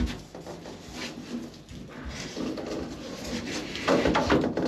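A thin 6 mm ceiling panel being bent and pushed up against wooden battens by hand: a knock at the start, irregular rubbing and creaking of the flexing sheet, and a louder run of knocks and scraping near the end.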